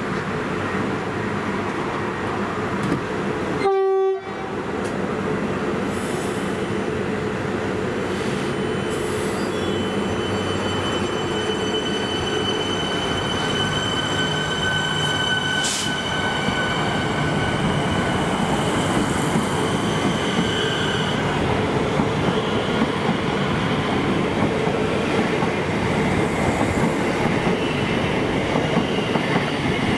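Melbourne Metro suburban electric train sounds a short horn blast about four seconds in, then pulls away from the platform with continuous rumbling wheel and running noise. A high steady whine sounds through the middle stretch.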